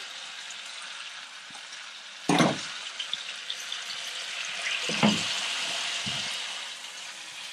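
Pork belly sizzling in a hot wok as rice cooking wine is poured in, the sizzle growing stronger about halfway through. Two sharp knocks, about 2 and 5 seconds in, are the loudest sounds.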